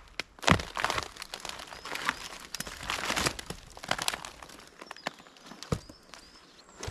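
Irregular crinkling and rustling of material being handled, with sharp crackles, busiest in the first few seconds and thinning out later.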